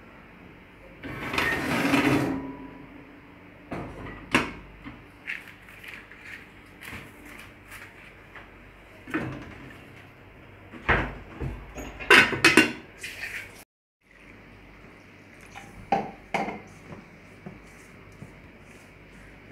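Pots and cookware handled on a gas stove: a loud noisy rush lasting about a second and a half, then scattered metal knocks and clatters, loudest in a cluster past the middle.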